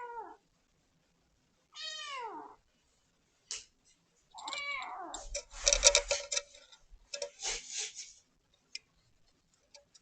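Kitten meowing three times, each a drawn-out meow that falls in pitch. About halfway through comes a louder burst of rustling with a few thumps, then a few faint clicks.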